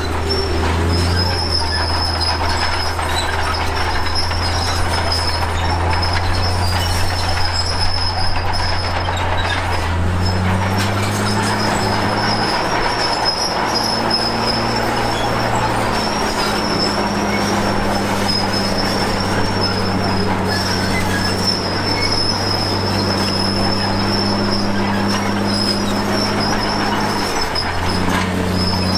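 Komatsu D53P crawler bulldozer working: its diesel engine runs steadily under load, with a high, thin squeal from the tracks running over it. The engine note shifts about ten seconds in and again near the end.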